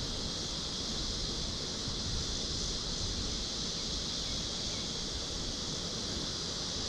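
Wind buffeting the microphone, with a steady high insect drone behind it.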